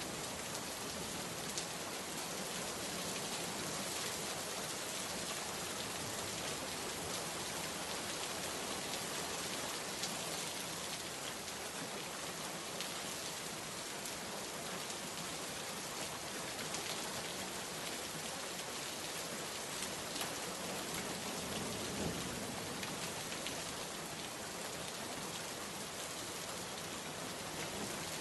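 Steady rain falling on a surface, a constant hiss with the patter of individual drops.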